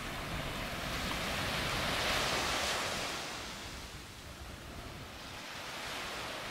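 Small waves breaking and washing up a sandy beach, one surge swelling about two seconds in and another near the end, with wind rumbling on the microphone.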